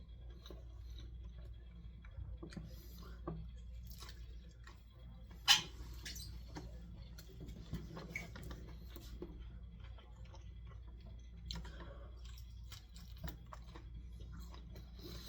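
A person chewing a fried chicken tender: soft wet mouth sounds and small scattered clicks, with one sharper click about five and a half seconds in.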